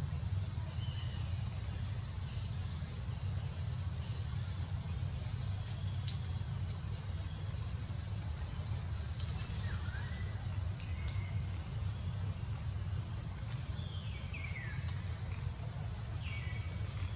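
Outdoor ambience under trees: a steady low rumble with a thin steady high tone above it, and a few short falling bird chirps from about ten seconds in.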